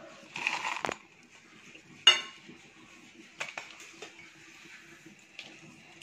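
Dried red chillies tipped from a steel bowl into a stainless steel mixer-grinder jar, rustling in briefly. About two seconds in there is one loud ringing clink of steel on steel, followed by a few light taps.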